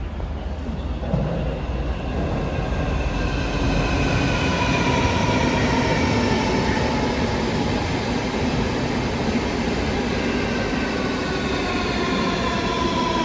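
Moscow Central Circle electric train running, a steady rumble with a whine from its traction motors that slowly rises in pitch as it picks up speed.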